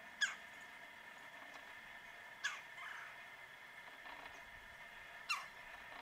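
Red-bellied woodpecker calling: three short, loud calls about two and a half to three seconds apart, each a quick sweep falling sharply in pitch.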